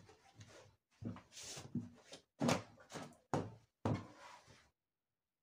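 Folded cotton saree being handled and set down on a table: a run of short cloth rustles and soft thumps, about six in all, stopping short near the end.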